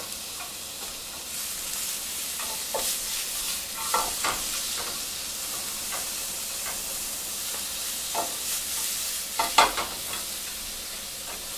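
Cabbage, onion and meat sizzling in a hot frying pan as they are stir-fried with chopsticks. A steady frying hiss runs under scattered clicks and knocks of the chopsticks and pan, the sharpest a few near the end.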